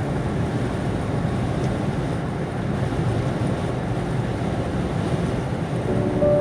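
Steady road and engine noise of a car at highway speed, heard from inside the cabin. A faint steady tone comes in near the end.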